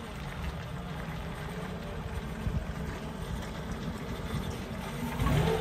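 1936 Daimler Light 15's 2-litre six-cylinder engine running as the car rolls slowly along at low speed, a steady low rumble that grows a little louder near the end.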